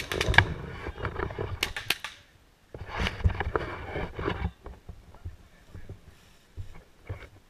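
Handling noise from the camera as it is fitted and adjusted by hand: rubbing, scraping and clicks against the camera body in two bursts of a second or two each, followed by only scattered light clicks.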